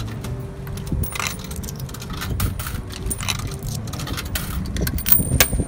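Coins pushed one at a time into the coin slot of a vending kiosk, each going in with a short metallic clink, about once a second, with loose coins jingling in the hand between.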